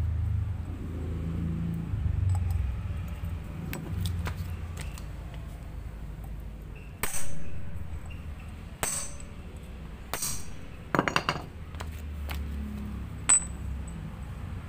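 Sharp metallic clinks of a tool and valve parts against a small motorcycle cylinder head during removal of the valve and its locks: single clinks a second or two apart, a quick triple clink, and a last clink that rings briefly.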